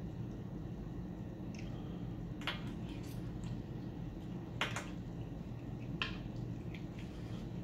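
Eating sounds: short wet mouth smacks and a quick slurp of spicy noodles off a fork, the sharpest of them about four and a half seconds in, over a steady low room hum.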